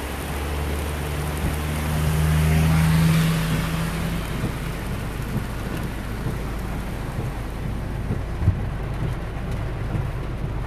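Heavy rain pouring on a flooded street, heard from inside a car. A car drives through the floodwater: its engine hum and the hiss of its spray swell to a peak about two to three seconds in, then fade and leave the steady rain. There is a single sharp tap near the end.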